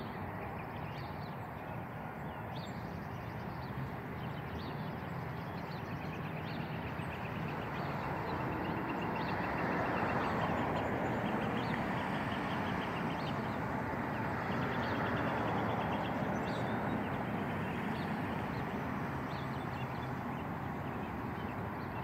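Road traffic going by, a steady rush that swells as vehicles pass and then eases off, with small birds chirping over it.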